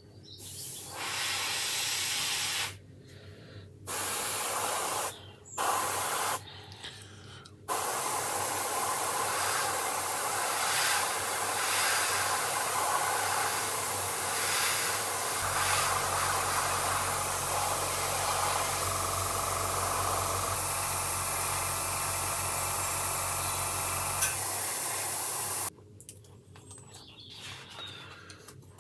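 Airbrush spraying Tamiya acrylic paint, with three short bursts of hiss and then one long steady spray of about eighteen seconds. A low hum runs beneath the spray for several seconds in the middle.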